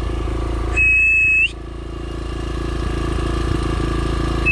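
Dirt bike engine idling with an even pulse. About a second in, a brief high steady tone sounds over it, like a whistle or beep, ending in a slight upward flick, and a second one begins near the end.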